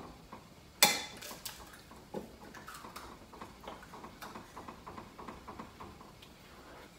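Light kitchen handling sounds: one sharp click about a second in, then scattered soft taps and clicks.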